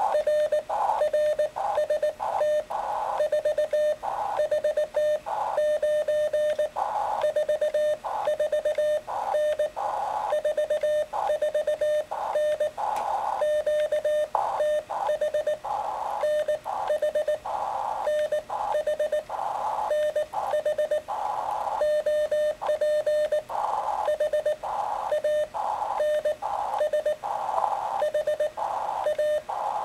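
Morse code (CW) from a small homebrew low-power ham radio transceiver: one mid-pitched tone keyed on and off in quick dots and dashes, with receiver hiss filling the gaps between them.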